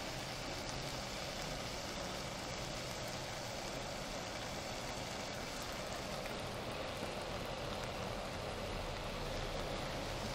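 Steady hissing from a Primus gas cartridge camp stove burning under a pan of shrimp and squid.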